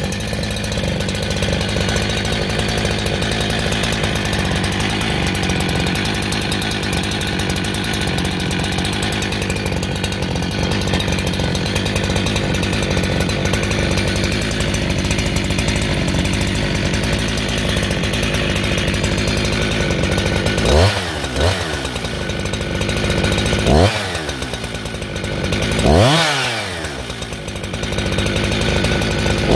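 Husqvarna 372XP two-stroke chainsaw idling steadily, then blipped to high revs and back down several times in the last nine seconds.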